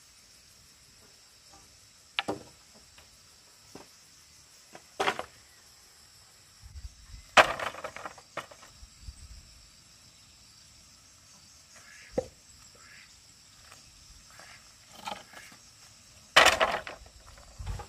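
Scattered knocks and handling noises, several short and two louder longer ones, over a steady high-pitched insect chorus.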